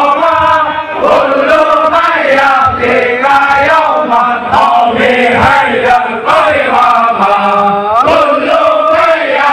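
Large crowd of men chanting a song together in unison, loud and close around the microphone.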